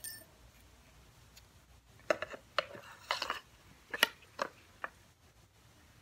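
Small hard parts of a vacuum brush roller, the metal axle with its ball bearings and plastic end caps, clinking and knocking as they are handled and set down. There are about half a dozen quick clicks and clacks between two and five seconds in.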